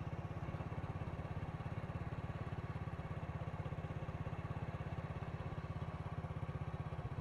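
Small motorbike engine running steadily at an even cruising speed, a low, evenly pulsing engine note.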